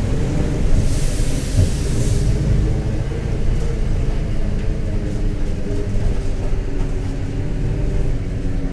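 Diesel engine of a Mercedes-Benz OF-1721 BlueTec 5 bus running steadily under way, with the growl of a worn bearing. About a second in, a hiss lasts roughly a second.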